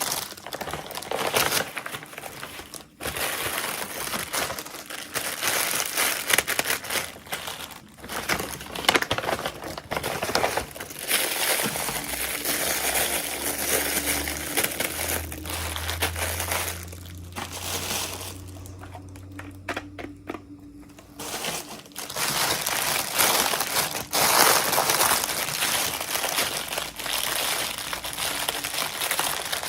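Packaging being crinkled and crumpled by hand while opening a miniature toy, a steady run of crackling that eases off for a few seconds past the middle and then picks up again.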